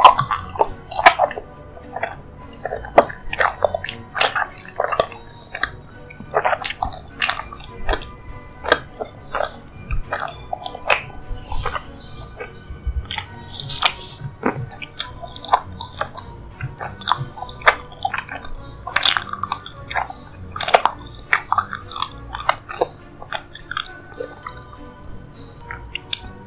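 Close-miked chewing and wet mouth sounds of someone eating a dessert, with many sharp smacks and clicks throughout, over background music.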